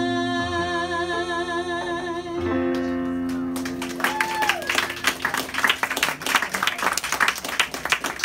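The last held note of a ballad: a woman's sung note with vibrato over a sustained electric-piano chord, dying away about three and a half seconds in. From about four seconds in, a small audience claps.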